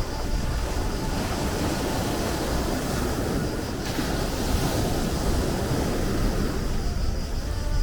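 Sea waves washing onto the shore in a steady rush, swelling as a wave breaks about four seconds in.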